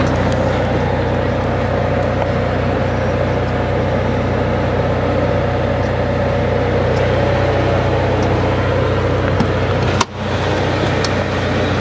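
Steady low mechanical hum of a running motor, even throughout, breaking off briefly and coming back about ten seconds in.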